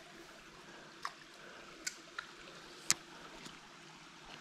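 Faint steady trickle of a small stream, with a few scattered sharp clicks, the loudest right at the start and about three seconds in.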